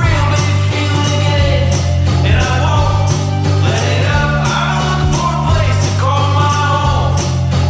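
Background music: an upbeat song with a steady beat, bass and a sung vocal line.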